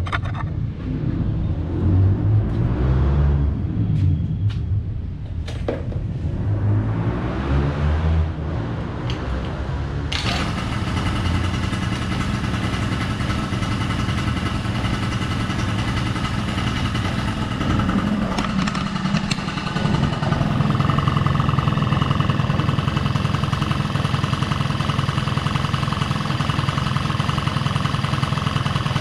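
Honda Dio AF27 scooter's two-stroke engine, newly fitted with a 48mm TWH big bore cylinder kit, starting for the first time after the build. It runs unevenly for about ten seconds, then settles into steady running and gets louder from about twenty seconds in.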